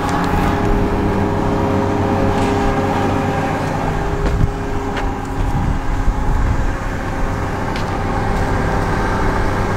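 Diesel engine of a Case 821F wheel loader idling steadily, with a few light knocks.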